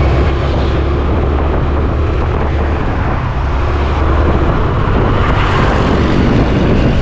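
Steady wind rush over the microphone together with the running engine and road noise of a gas-powered automatic scooter being ridden along a street.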